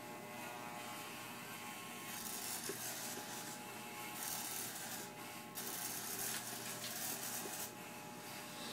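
Electric hair clippers buzzing steadily while they cut through a head of hair, a rasping hiss over the hum that drops away briefly a few times as the clippers come off the scalp.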